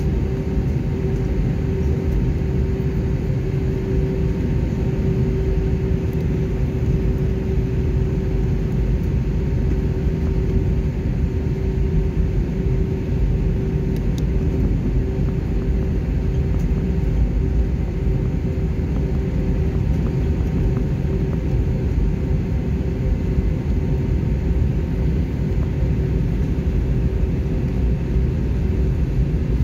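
Inside the cabin of an Airbus A320 taxiing: a steady low rumble of the jet engines at taxi power and the wheels rolling, with a steady hum that fades about halfway through.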